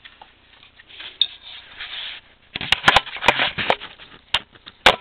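Hands working at a moped's wiring connectors: handling and rubbing noise, then from about halfway a run of sharp clicks and knocks, the last one the loudest.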